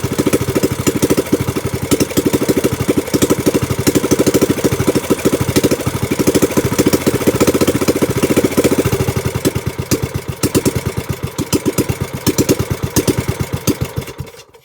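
Small gasoline boat engine idling with a rapid, even firing beat, running again on a new replacement carburetor after its old carburetor clogged from sitting unused for over a year. It fades out at the very end.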